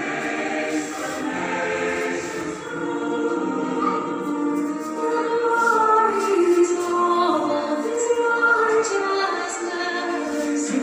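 A song with singing voices, playing steadily as dance music.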